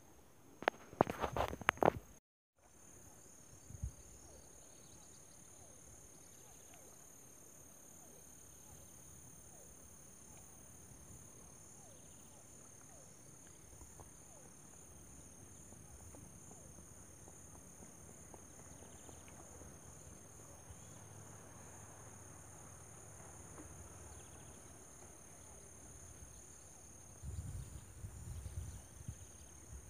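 Insects trilling steadily at a high pitch over a faint rural background. A few sharp knocks sound in the first two seconds, the sound drops out briefly just after, and low rumbling bumps come in near the end.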